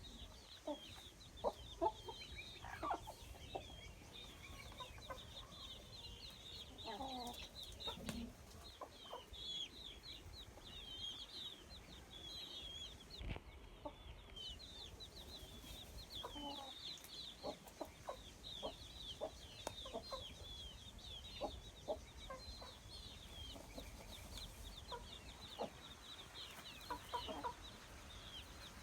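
Domestic chickens clucking and cheeping: low clucks come and go over a constant run of short, high-pitched cheeps.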